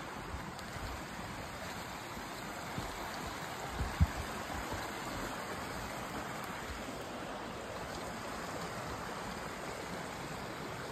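Shallow woodland creek flowing over rocks: a steady rushing, with a soft thump about four seconds in.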